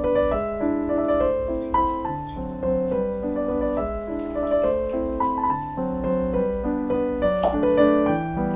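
Background piano music: a gentle melody of held notes.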